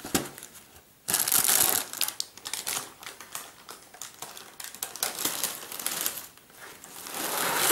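Cardboard cereal box being handled: flaps scraping and rustling, with scattered small clicks and taps. A louder burst of rustling comes about a second in, and the rustling builds again near the end.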